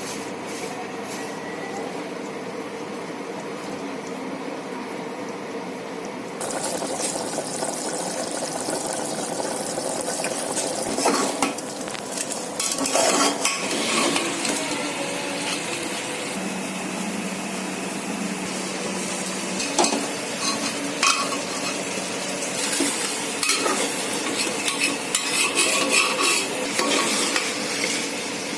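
A spoon stirring and scraping in a cooking pot of frying meat and bottle gourd, with a steady sizzle and frequent clinks of metal on the pot. It starts quieter and turns louder about six seconds in, with many sharp clinks and scrapes.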